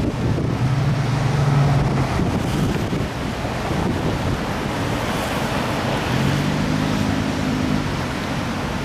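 Rushing of a fast, flood-swollen river carrying ice, with wind buffeting the microphone. A low hum comes in twice, briefly near the start and again near the end.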